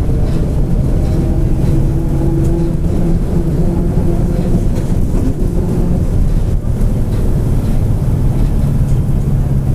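Mercedes-Benz OF-1722M city bus under way, its diesel engine running steadily with a growling differential. A whining tone sits over the engine for a couple of seconds near the start.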